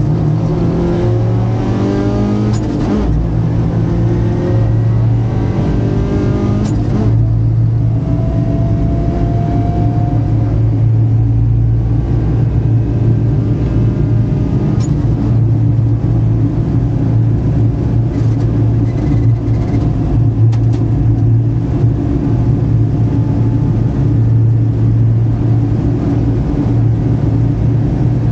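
Rally car engine heard from inside the cockpit at full effort: in the first seven seconds the pitch climbs and drops back twice as it accelerates up through the gears, then it runs hard at steady revs.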